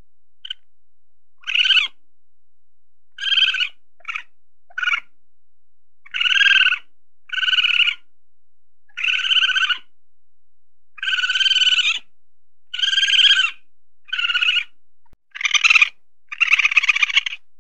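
Weasel giving about a dozen short, high-pitched calls, roughly one a second with silent gaps; a few are tiny chirps, and the last ones come closer together and run longer.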